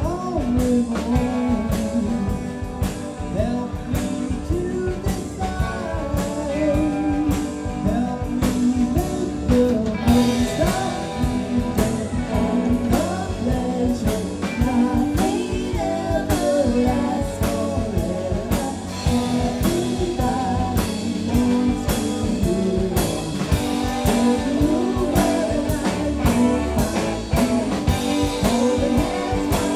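Live band playing a blues-rock song with electric guitar, electric bass, drum kit and keyboard over a steady beat. A woman sings lead.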